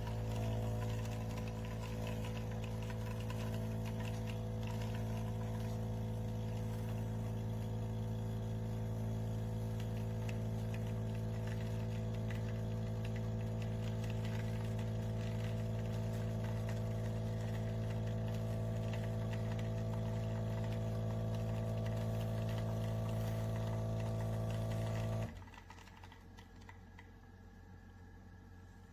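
Steady machine hum with a buzzing rattle, like a small electric motor or pump running, that cuts off abruptly about 25 seconds in.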